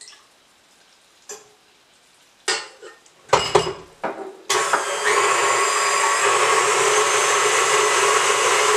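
A few clicks and knocks as the mixer head is handled, then a KitchenAid tilt-head stand mixer is switched on about halfway through and runs at a steady speed, its wire whisk whipping egg whites in the steel bowl.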